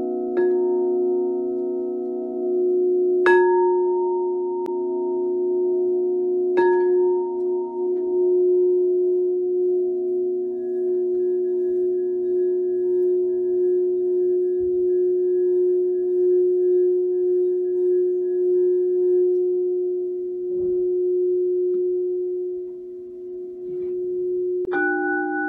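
Singing bowls ringing with long, overlapping sustained tones. Light strikes about three times in the first seven seconds each add a higher ringing note, and near the end another bowl is struck, bringing in a different, higher set of tones.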